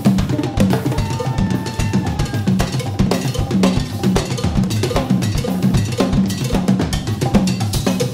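Jazz drum kit and hand percussion playing a busy groove: many quick strokes over a low drum note that repeats about twice a second.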